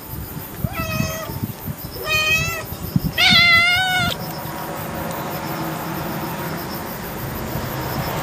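Domestic cat meowing three times, each call longer and louder than the last, the third lasting about a second.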